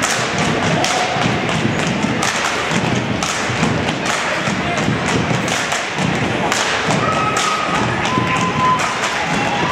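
Step team stomping and clapping in unison on a hardwood gym floor: a steady run of heavy thuds and sharp claps, a few every second, over crowd noise, with a few short high squeaks near the end.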